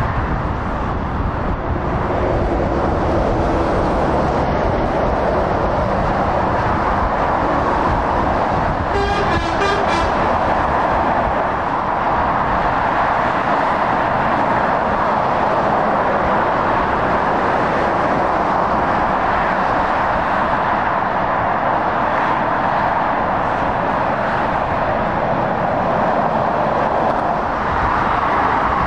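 Steady motorway traffic noise: tyres and engines of passing lorries and cars at speed, with a short horn toot about nine seconds in.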